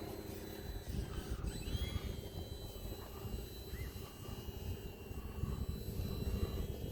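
HobbyZone Sport Cub S 2 RC airplane's electric motor and propeller buzzing in flight, with strong wind rumbling on the microphone.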